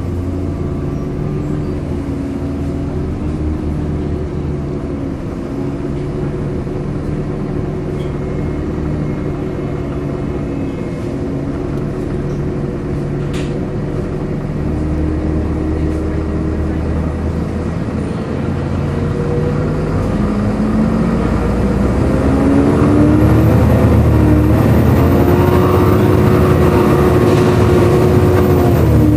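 Volvo B7LA articulated bus's diesel engine and cooling fan running, heard from on board, with a loud vacuum-cleaner-like drone (a "loud hoover"). The engine note wavers, then rises and grows louder about two thirds of the way in as the bus speeds up.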